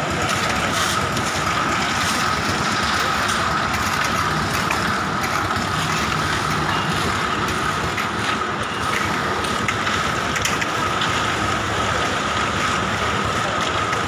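Engine-driven construction machinery running steadily, with a constant high whine over the engine noise and scattered faint clicks and knocks.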